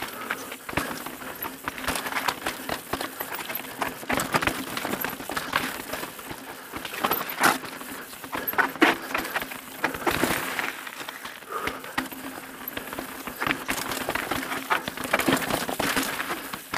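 Evil The Calling mountain bike descending a rocky trail: tyres rolling over rock slabs and gravel, with frequent knocks and rattles from the bike over the bumps.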